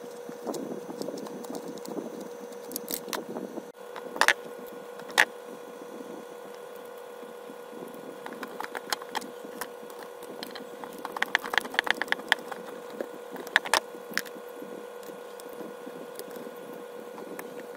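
Clicks, knocks and rattles of plastic and metal parts being handled as a blender motor is worked out of its plastic base. Two sharp knocks about four and five seconds in, and a quick run of rattling clicks past the middle, all over a steady background hum.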